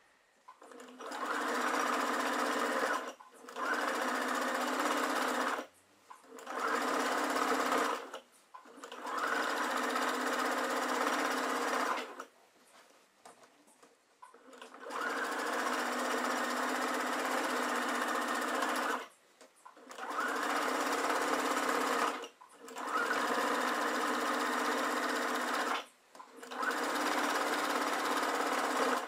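Sewing machine stitching through a layered quilt, running at a steady speed in short runs of two to four seconds with brief stops between them. There is a longer pause near the middle.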